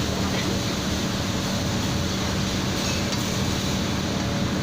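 Minced meat for a bolognese sauce frying in a pan: a steady sizzle with occasional clinks of stirring, over a constant low hum.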